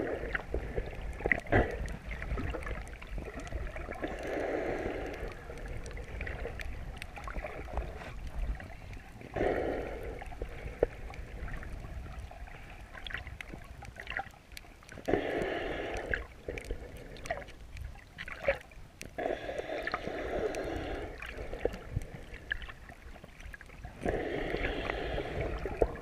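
A swimmer breathing heard through an underwater GoPro housing: long, muffled breaths about every five seconds over a low water rumble, with faint scattered clicks.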